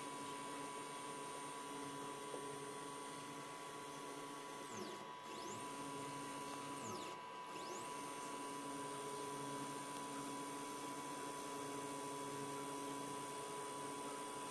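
Small CNC router's 800 W spindle running with a high whine while it engraves an aluminium cylinder on the rotary fourth axis, with a steady machine hum underneath. About five and seven seconds in, the whine briefly drops in pitch and climbs back up.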